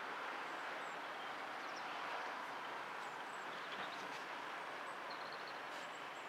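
Steady outdoor background noise without a clear engine note, with a few faint high bird chirps, a quick run of them about five seconds in.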